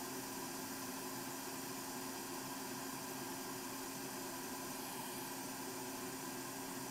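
Steady low electrical hum over an even hiss: the bench's background noise, with no beep or click from the meter.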